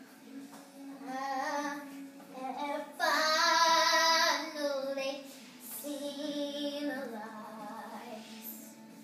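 A young girl singing, with a loud long held note about three seconds in, over quieter background music.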